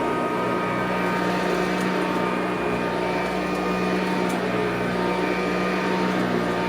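Sanitaire SC684 commercial upright vacuum running steadily at a constant pitch and level.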